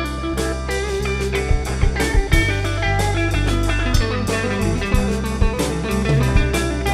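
Live band instrumental break: a Telecaster-style electric guitar playing a lead line over a drum kit.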